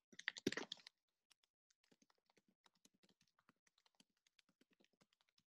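Faint typing on a computer keyboard: a quick flurry of keystrokes in the first second, then lighter, irregular taps.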